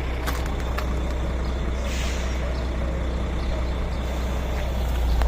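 A steady low drone of running machinery, with a few light clicks in the first second and a short hiss about two seconds in.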